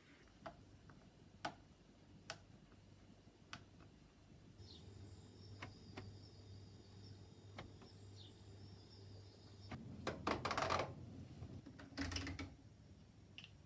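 Faint sharp clicks from a washing machine's program selector knob being turned, followed by a low steady hum with a faint high whine for about five seconds that stops suddenly, then two short rustling knocks near the end.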